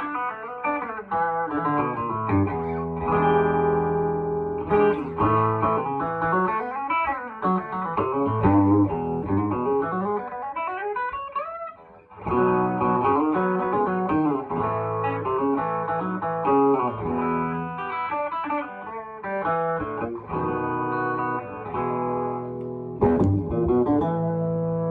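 Early-1950s Gibson Les Paul Junior's P90 pickup played through a 1975 Marshall JMP tube combo: chords and single-note lines with slides, one long upward slide about halfway, then a brief pause before the playing picks up again.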